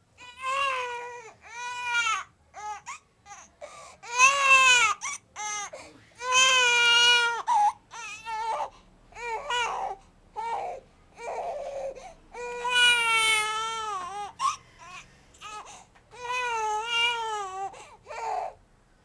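Two-month-old baby crying: a string of high wails, each rising and falling in pitch and lasting up to about two seconds, broken by short gasps for breath.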